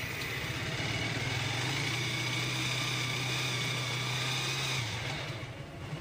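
Bajaj Avenger 150 Street's single-cylinder DTS-i engine running at idle after its broken timing chain was replaced. The revs lift slightly about a second in, hold steady, then drop away near the end.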